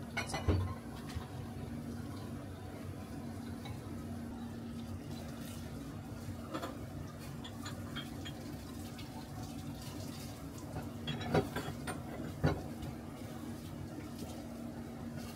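Steady kitchen hum, with a few light knocks from handling stainless steel tray and bowl while a steak is pressed into breadcrumbs: a cluster just after the start and two sharper knocks about a second apart in the last third.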